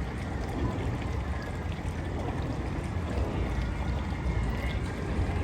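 Steady trickling, running water at the pool, with a low rumble of wind on the microphone.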